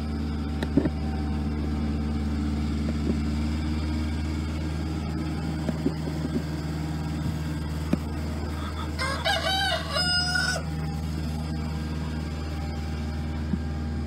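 A rooster crows once, about nine seconds in, a call of about a second and a half with several rising and falling notes. Underneath runs a steady low hum, with a few light knocks.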